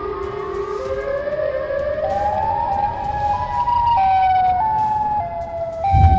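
The eerie, siren-like tone of a viral 'strange sound in the fog' clip, the roar said to come from the fog. It climbs slowly in pitch for about three seconds, then drops in a few steps, and a low rumble comes in near the end.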